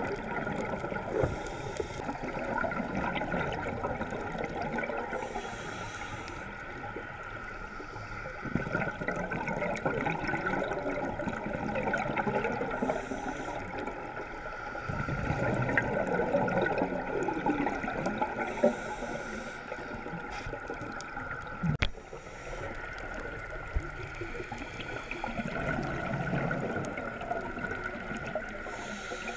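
A scuba diver's regulator breathing underwater: exhaled bubbles gurgling in swells with quieter stretches between, muffled through a camera's waterproof housing, over a steady faint hum.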